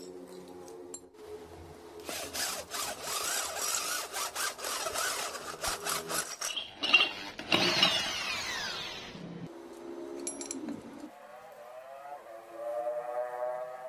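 Corded electric drill boring into a metal pipe fitting, grinding for a few seconds, then a sharp knock about seven seconds in and the motor's whine falling as it winds down.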